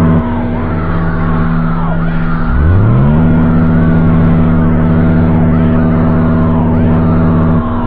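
Loud, low buzzing alarm drone from an Emergency Alert System–style alarm. It drops away just after the start, glides back up in pitch about two and a half seconds in, holds steady, and drops again near the end.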